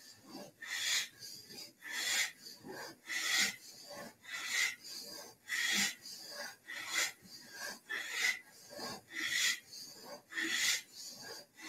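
A woman breathing forcefully in and out through the nose in time with Kundalini yoga spinal flexes, one breath stroke each way as the spine rocks forward and back. The strokes come steadily, a louder one about every second and a bit with a softer one between.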